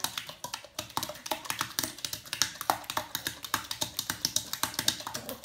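A puppy splashing with its front paw in its water bowl: a fast, irregular run of slaps and splashes against the water and the bowl, several a second.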